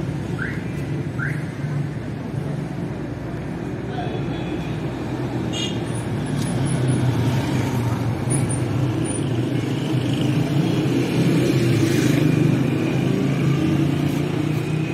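City street traffic: a steady hum of car engines with passers-by talking. Two short rising chirps sound in the first second or so.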